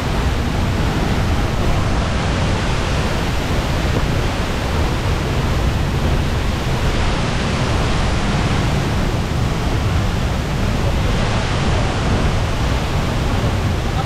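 Waterfall plunging into a plunge pool close by: a loud, steady rush of falling water.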